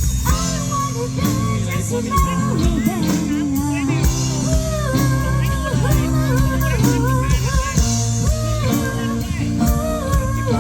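A live band plays a pop ballad with steady chords and bass, and a gliding lead melody runs over them, with no sung words.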